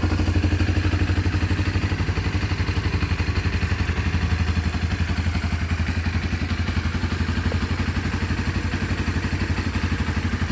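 Honda CB 300R's single-cylinder engine idling steadily through its original exhaust, with an even, rapid pulsing beat.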